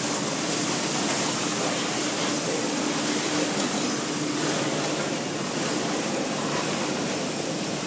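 Silicon steel slitting line running: a steady machinery noise with a faint low hum.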